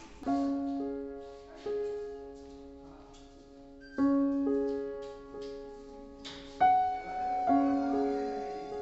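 Background piano music: slow, soft notes and chords, each struck a second or more apart and left to ring and fade.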